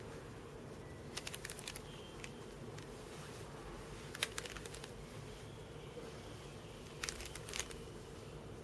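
Faint clicks of plastic speed cubes being handled and turned, in three short clusters, over a low steady hum.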